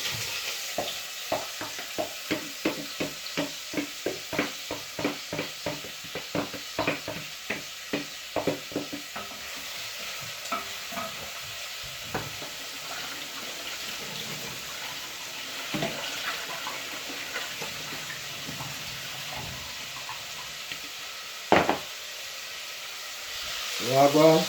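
Food frying in hot oil in a pot, a steady sizzle, while a spoon stirs and knocks against the pot, rapid and regular for about the first ten seconds, then only now and then, with one sharp knock near the end.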